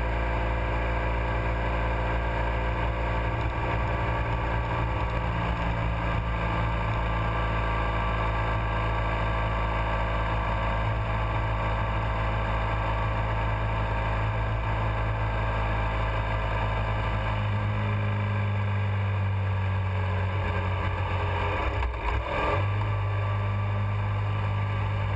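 Motorcycle engine running at a steady cruise. About two-thirds of the way through the engine note changes, and there is a brief break in the sound near the end.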